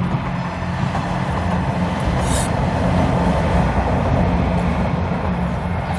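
Steady low rumble of a vehicle in motion, swelling a little midway.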